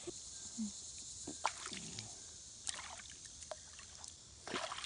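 Faint lake water sloshing around a man wading with a toddler, with a few small, scattered splashes.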